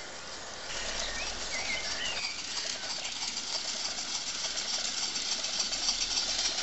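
Live-steam Gauge IIm garden railway locomotive running, a steady steam hiss with fast fine beats that grows louder suddenly under a second in. Birds chirp briefly in the background.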